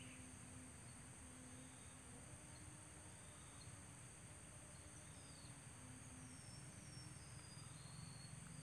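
Near silence with a faint, steady, high-pitched insect drone, with a few faint high chirps about halfway through and near the end.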